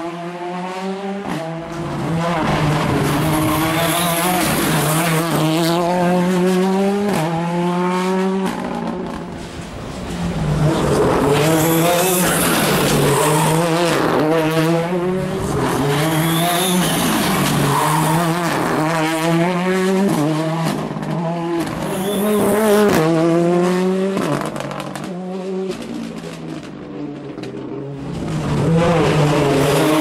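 Ford Fiesta R5 rally car's turbocharged 1.6-litre four-cylinder engine driven flat out, its pitch climbing and breaking over and over through rapid gear changes on several passes, with tyres squealing through the tight bends.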